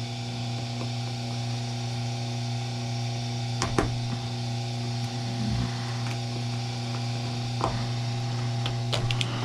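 Electric cable-stripping machine running with a steady electric hum, broken by a few light knocks and clicks.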